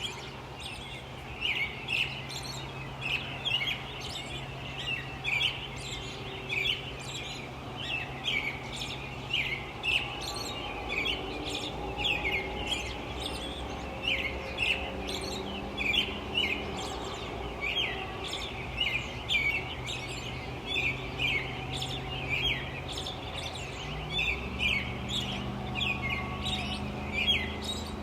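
Many small birds chirping and tweeting in a continuous morning chorus, over a steady low rumble of light distant traffic.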